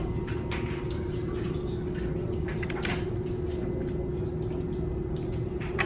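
LEGO bricks and plates being handled and pressed together: a few scattered light clicks over a steady background hum.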